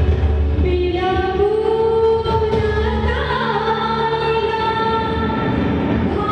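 Live wedding orchestra music: a singer holding long, slow, sliding notes over instrumental accompaniment. A low hum underneath stops about halfway through.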